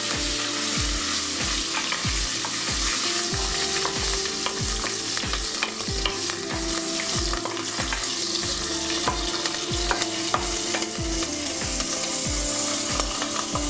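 Hot oil sizzling as mint leaves and green chillies fry with whole spices in a pressure cooker, with a spoon stirring and scraping, heard as many short clicks against the steady sizzle.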